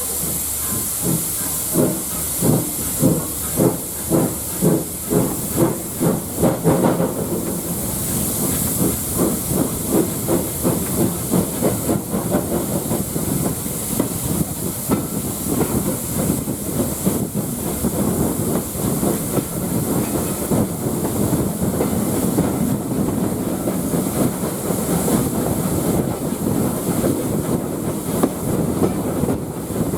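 Steam locomotive working away from a stand. Its exhaust beats come about two a second at first, then quicken into rapid chuffing after about seven seconds as it gathers speed, over a steady hiss of steam.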